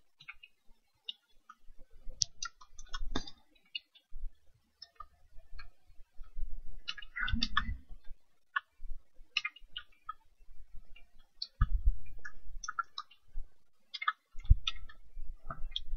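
Typing on a computer keyboard: irregular key clicks, with a few duller thuds among them.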